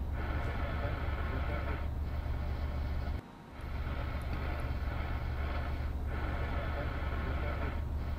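Snap Circuits AM radio receiver's speaker giving out steady static hiss over a low hum while its tuning capacitor is turned, with no station tuned in yet. The sound cuts out briefly about three seconds in.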